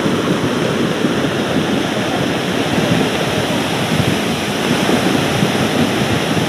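Heavy tropical downpour with rainwater rushing past, a steady, even wash of water noise.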